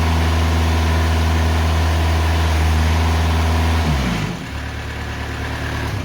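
Timberking 2000 sawmill's engine running at high speed, then about four seconds in it drops in pitch and winds down to a lower, quieter speed.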